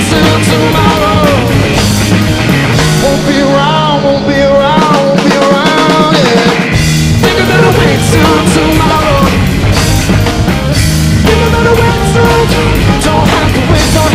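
Rock music: a large acoustic drum kit played live with toms and cymbals, over a rock backing track. The low end thins out for a couple of seconds about four seconds in.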